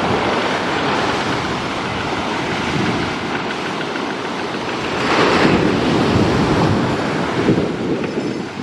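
Surf breaking and washing up a sandy beach in a steady rush, with a bigger wave surging in about five seconds in.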